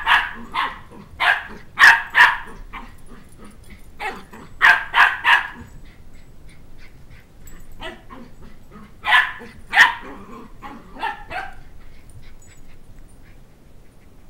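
A two-month-old Shetland Sheepdog puppy barking: high-pitched yaps in irregular clusters of one to three, which die away near the end.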